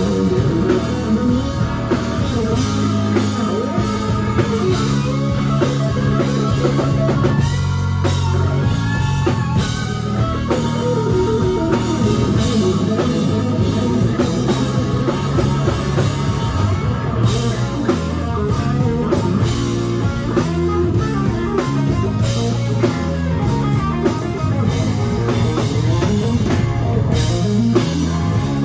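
Live rock band playing, with electric guitar and drum kit.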